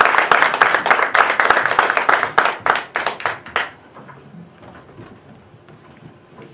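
Audience applause, thinning into scattered claps and dying away about three and a half seconds in, leaving only faint room noise.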